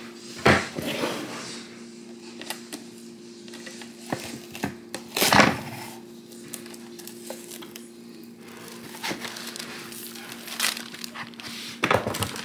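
Kitchen wrap being crinkled and handled, with rustles, small clicks and a few louder crinkling bursts, over a steady low hum.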